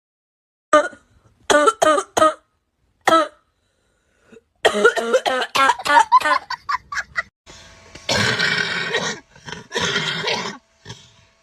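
People coughing: a few short sharp coughs in the first few seconds, a quick run of coughs from about the middle, then two longer, noisier coughs near the end.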